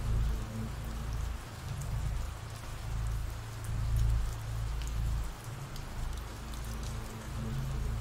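Ambient rain recording: steady rain falling, with scattered drop ticks and a low rumble underneath that swells and eases.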